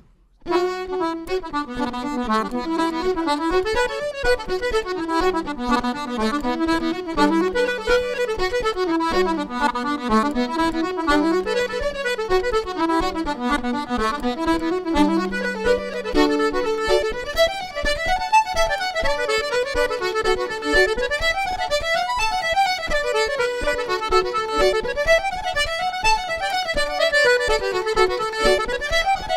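Irish traditional tune played live on fiddle and accordion, starting abruptly about half a second in, with a quick melody running up and down throughout.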